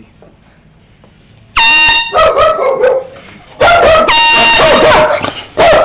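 Air horn blasted three times: a short blast about a second and a half in, a longer one about two seconds later, and a brief one near the end. A dog vocalizes in reply between and over the blasts.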